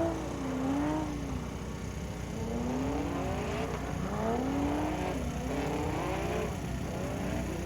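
Car engine revving hard, the pitch climbing and dropping again and again as the throttle is worked, as in drifting.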